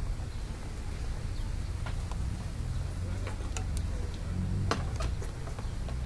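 A few light, sharp taps and clicks, irregularly spaced and loudest about three quarters of the way through, as a budgerigar pecks and steps on a glass tabletop and a toy cow. A steady low rumble runs underneath.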